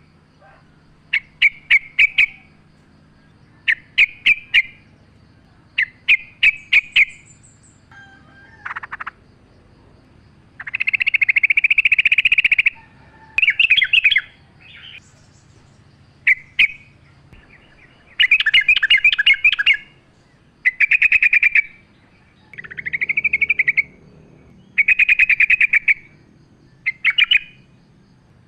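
Yellow-vented bulbul (trucukan) singing. First comes a run of short phrases, each a few sharp clicks ending in a quick trill, about every two seconds. From about ten seconds in, longer, louder bubbling phrases repeat with short pauses between them.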